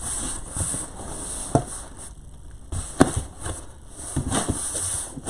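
Flaps of a cardboard shipping box being folded shut by hand: a few light knocks and scrapes of cardboard, the sharpest about three seconds in.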